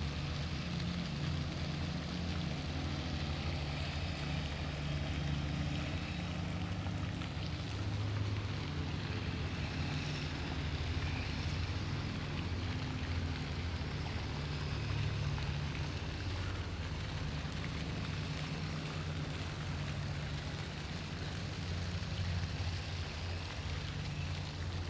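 Steady low rumble under a soft, even hiss of water splashing from a small lake fountain.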